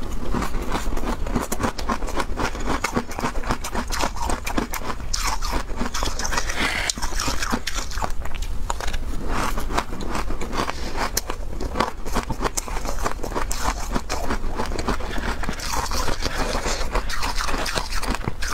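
Close-up crunching and chewing of frozen shaved ice, mixed with a metal spoon scraping and scooping the ice in its tray: a dense, unbroken run of crackly crunches.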